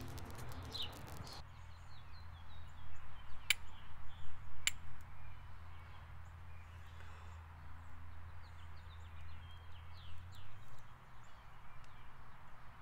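Nitrated cattail down sputtering and crackling as it burns for about the first second and a half. Then songbirds chirping, with two sharp clicks about a second apart a few seconds in, over a low steady hum that stops near the end.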